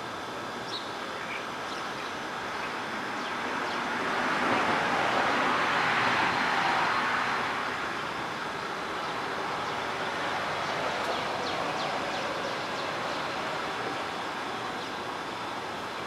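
Distant road traffic: a vehicle passing by, a hiss that swells for a few seconds around the middle and then fades back into steady background noise.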